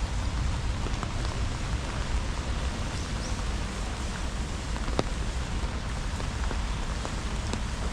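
Steady rain falling, with scattered sharp ticks of single drops and a steady low rumble underneath.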